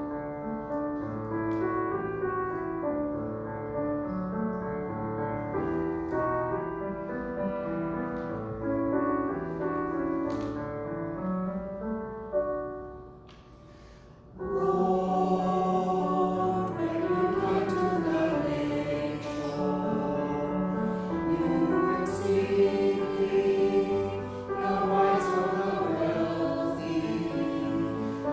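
A hymn: an instrument plays held chords for about thirteen seconds, then after a short lull a group of voices begins singing with it.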